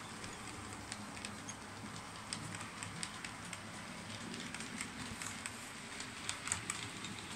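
Model train running on the layout track, its coach wheels clicking irregularly over the rail joints over a faint steady hum and hiss, with a few louder clicks near the end.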